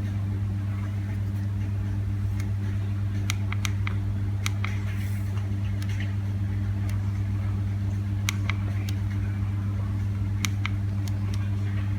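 Steady low electrical hum with a few faint, scattered clicks from the keypad of a Nokia 7250i mobile phone being pressed.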